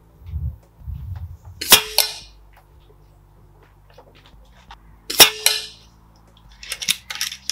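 Norica Viriatus .22 pre-charged pneumatic bullpup air rifle fired twice, about three and a half seconds apart, each shot a sharp crack with a brief ringing tail. A couple of low thumps come before the first shot, and a quick run of clicks comes near the end.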